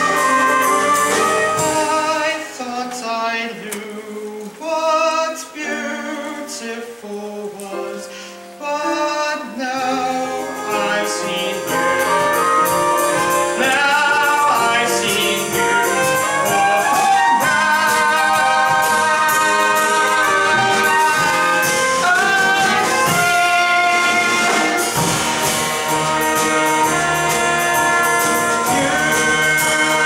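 Instrumental musical accompaniment with sustained melody lines, thinner and quieter for several seconds near the start, then fuller and steady.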